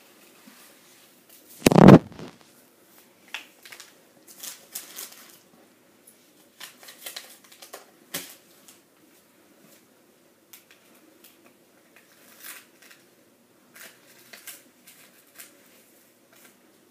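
Small plastic trays and sachets of a toy mini kitchen kit handled on a tabletop: scattered light clicks and rustles, with one loud thump about two seconds in.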